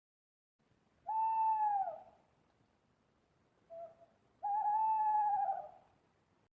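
Owl hooting: two long hoots about three seconds apart, the first dropping in pitch at its end and the second wavering, with a short faint note just before the second.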